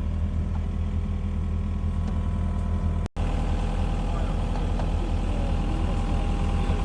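Excavator's diesel engine running steadily, with a momentary dropout to silence about three seconds in.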